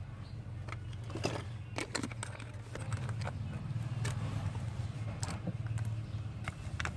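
Irregular small clicks and taps, about a dozen of them, over a steady low hum.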